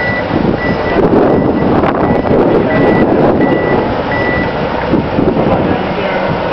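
LPG forklift's reversing alarm beeping about one and a half times a second while the truck backs up with a load, stopping about two-thirds of the way through. Its engine runs steadily underneath.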